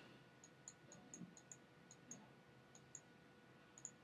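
Faint, irregular computer mouse clicks, a dozen or so, over a low steady hum of room tone.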